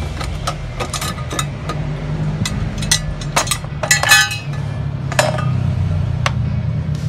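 Irregular metallic clinks and knocks from tools and parts being handled on a top-load washing machine's motor and pulley assembly, over a low steady hum. The clinks come thickest in a cluster a little past the middle.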